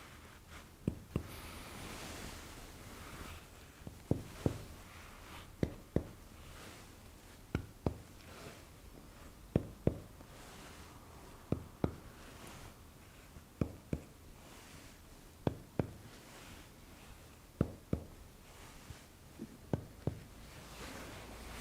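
Chest percussion by hand: a finger striking the middle finger of the other hand laid flat on the chest wall, sounding short dull knocks. The knocks come in pairs about half a second apart, a pair roughly every two seconds, as the examiner moves from site to site across the chest.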